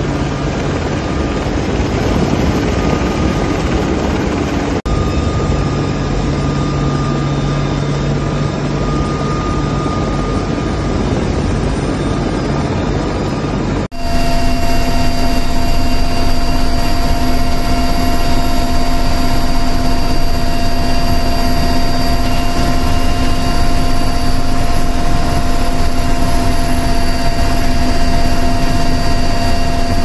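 Steady drone of an aircraft's engine and rotor heard from inside the cabin. About 14 seconds in it cuts to a louder, clearer recording with steady whining tones over the drone.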